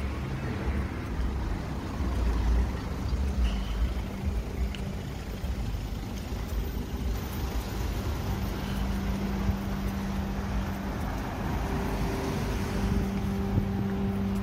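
Road traffic: car engines running and passing, with a steady low engine hum that sets in about eight seconds in.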